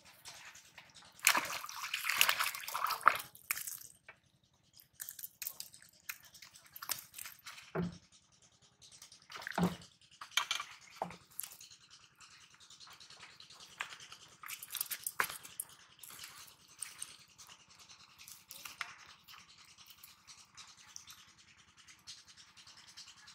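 A hooked fish splashing at the pond surface for a couple of seconds about a second in as it is pulled out on the line. After that come scattered rustles and taps as the fish is handled and taken off the hook over a plastic sack.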